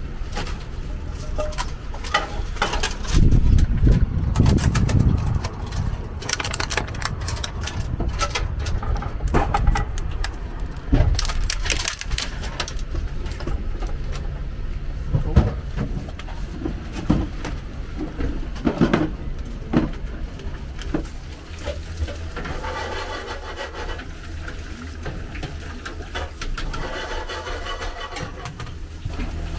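Cooking in a food-truck kitchen: scattered clinks and knocks of pans and utensils over a steady low hum, with a heavier low rumble a few seconds in. Near the end, oil sizzles in a deep fryer.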